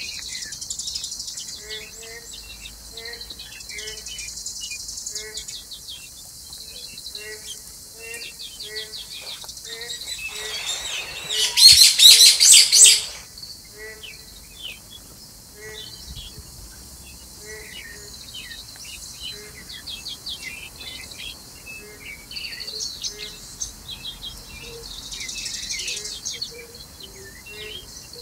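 Small birds chirping in short repeated notes, with a faint high insect hiss coming and going. Near the middle, a loud rasping buzz of rapid pulses lasts about two seconds.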